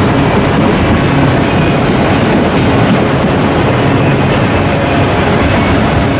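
Train cars rolling past at close range: steady, loud wheel-on-rail noise with a few brief faint high squeaks.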